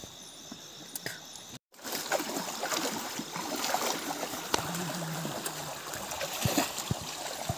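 Night insects trilling in steady high tones, cut off abruptly about a second and a half in; then water trickling and splashing, with many small scattered clicks and knocks.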